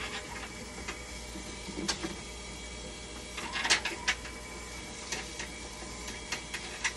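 An opened hemodialysis machine running with a steady hum, with irregular clicks and knocks from hands working among its hydraulic parts, the loudest cluster a little past the middle.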